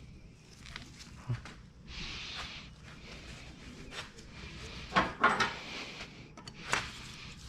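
A few sharp clicks and knocks of metal tools and parts being handled, the loudest a quick cluster about five seconds in and another a little before the end, over a low hiss.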